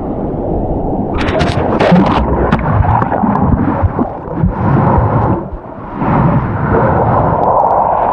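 Rough ocean surf breaking and churning close by, loud and rumbling, with wind buffeting the microphone and a few sharp splashes about a second in.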